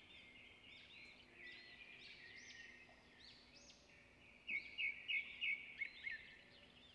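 Birds chirping and singing: many short, overlapping rising-and-falling calls, with one bird giving a louder run of about seven sharp notes about four and a half seconds in.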